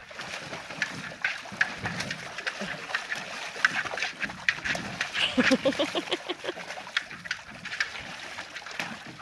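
A dog splashing about in shallow pool water while mouthing and chewing a plastic buoy, with irregular wet clicks and splashes throughout. The dog makes a short vocal sound a little past halfway.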